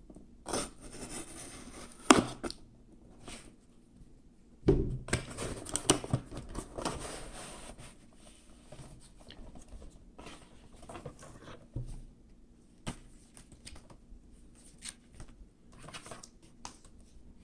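A box being opened and its packaging handled: irregular scraping, rustling and tearing with sharp knocks, loudest in a busy stretch about five to seven seconds in.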